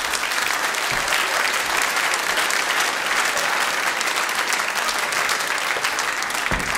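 Theatre audience applauding, a steady dense mass of clapping.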